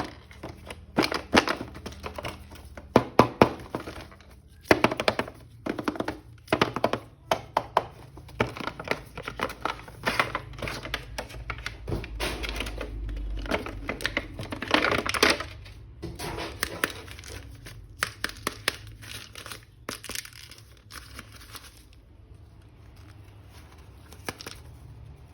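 Plastic toy packaging crinkling and tearing as it is opened, with sharp clicks and knocks from a plastic action figure being handled. The handling noise thins out over the last few seconds.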